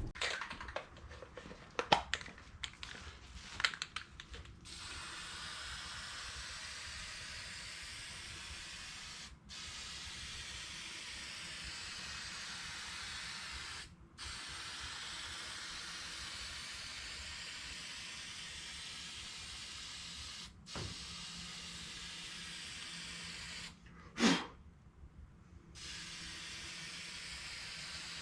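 Aerosol spray paint can hissing in long, steady sprays of several seconds each, with short breaks between passes. A few clicks and knocks come in the first few seconds, and a brief louder sound comes near the end.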